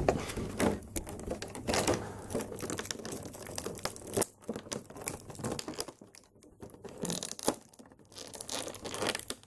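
Clear plastic blister packaging crinkling and crackling as hands handle it to free an action figure. The crackling is dense for the first few seconds, then comes in sparser, softer bursts.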